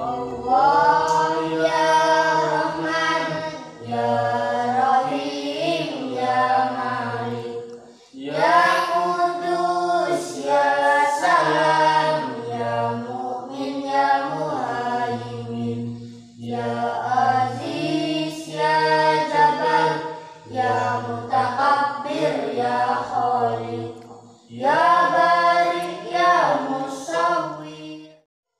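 A cappella vocal music: a group of voices singing in harmony without instruments, in phrases of a few seconds with short breaths between. It cuts off just before the end.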